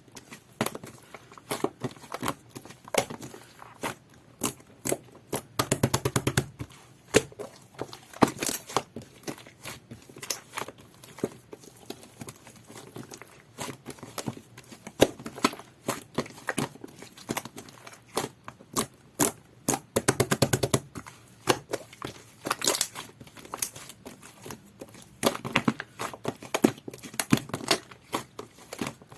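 Jelly-textured whipped-cream slime being squished and pressed by hand, giving irregular sticky clicks and pops, with denser runs of crackling about six seconds in and again about twenty seconds in.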